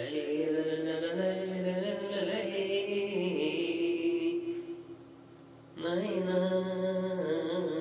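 A man singing long, drawn-out notes into a handheld karaoke microphone, in two phrases with a short break about halfway through.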